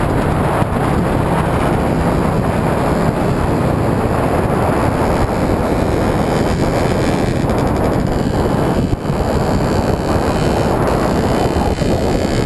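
Motorcycle being ridden, heard as a steady rush of wind on the camera's microphone with the engine running underneath.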